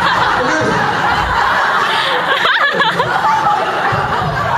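Audience laughing loudly and continuously, many voices overlapping.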